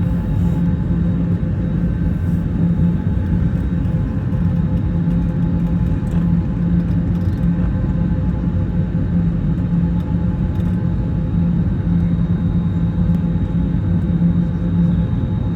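Steady engine and cabin noise inside an Airbus A321neo airliner: a loud, even drone with a low hum and a few fixed higher tones running without change.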